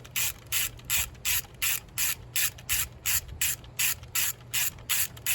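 Ratchet wrench clicking as it is swung back and forth in short, even strokes, about three a second.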